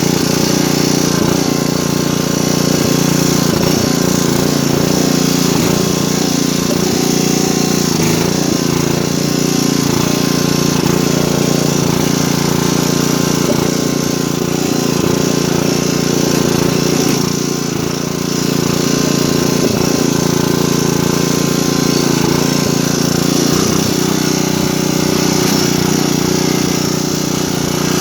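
1980s Craftsman riding lawn mower's engine running steadily as the mower is driven, its pitch wavering slightly. The sound dips briefly about 18 seconds in.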